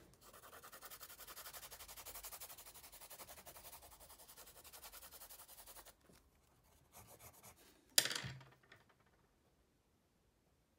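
A drawing tool scribbling fast, heavy strokes across paper, about five strokes a second, stopping about six seconds in. A single sharp knock follows about eight seconds in.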